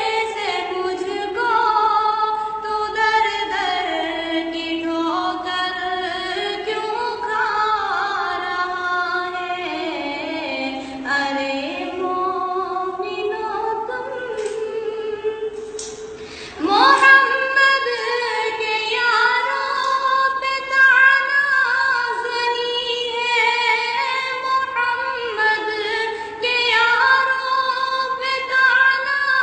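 A young girl singing a naat (an Urdu devotional hymn in praise of the Prophet) unaccompanied, holding long notes that slide up and down in pitch. She breaks off briefly about halfway, then comes back in louder.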